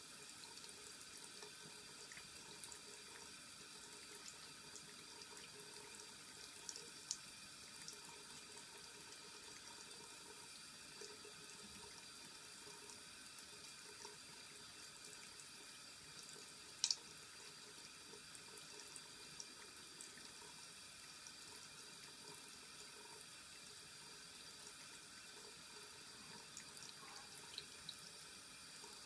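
A thin stream of water running from a bathroom tap into a ceramic washbasin: a faint, steady trickle. Scattered small ticks, with one sharper click near the middle.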